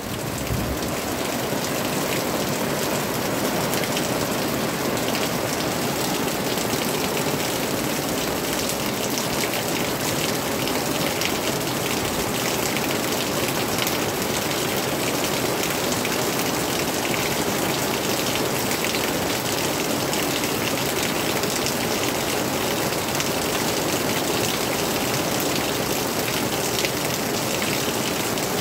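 Steady rain falling on leaves and a tarpaulin roof: a dense, even patter of drops.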